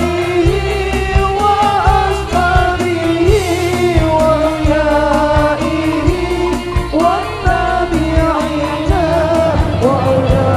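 Live sholawat, an Islamic devotional song: a sung melody over a band with a steady drum beat.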